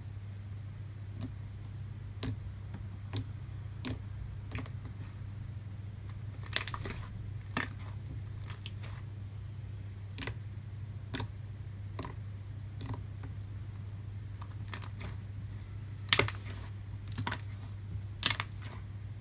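Thick white cream cheese slime being pressed, folded and poked by hand on a tabletop: irregular sticky clicks and small pops, the loudest a few seconds in and again near the end, over a steady low hum.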